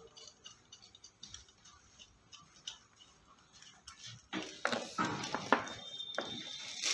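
Faint metal ticks and clicks of a hex (Allen) key turning screws out of an office chair's back bracket. From about four seconds in they give way to louder, continuous crackling and rustling as the plastic-wrapped chair back is handled.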